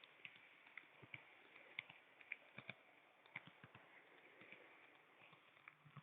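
Model railway train running on its track: faint, irregular clicks and ticks over a low steady hiss.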